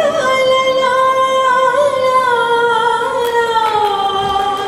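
A woman singing a wordless humming song with no accompaniment: a long held note that rises at the start, then slides slowly down in pitch.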